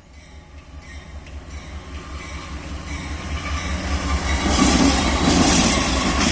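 Diesel locomotive approaching and passing, its deep engine rumble and rail noise growing steadily louder and loudest about five seconds in.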